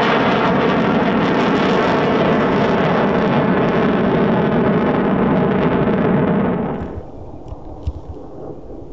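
Eurofighter Typhoon's twin EJ200 turbofan engines, a loud steady jet noise that loses its high end as the aircraft climbs away. About seven seconds in it drops off sharply to a distant low rumble, with a single brief thump near the end.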